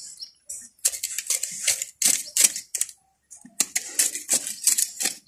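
Kitchen knife blade digging and scraping into a bed of garden soil and decomposed sawdust to open a planting hole: runs of quick gritty scratches, with a brief pause about three seconds in.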